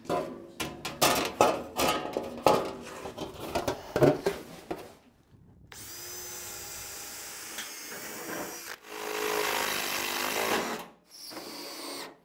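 Thin aluminium sheet knocking and rattling as it is handled for about five seconds, then a cordless drill running as it bores through the curved aluminium body panel, in three runs with short stops between them.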